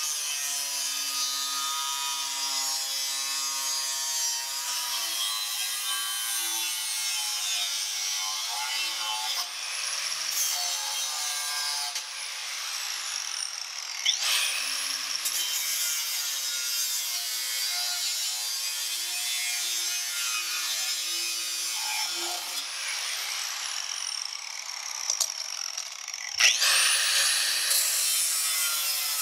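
Angle grinder with a cutoff wheel cutting into the rim of a steel exhaust pipe: a steady high whine and grinding. The motor spins up again about three times as the grinder is restarted.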